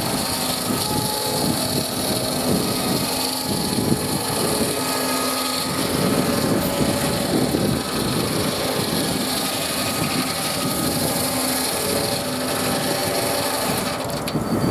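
Belt-driven circular saw bench, powered by a steam traction engine, cutting through a log with a steady high rasping hiss over the hum of the running blade and belt. The cutting sound drops away near the end as the blade comes out of the wood.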